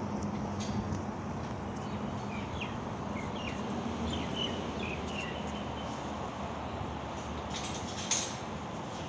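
Steady outdoor background noise with a few short bird chirps between about two and five seconds in, and a single sharp click near the end.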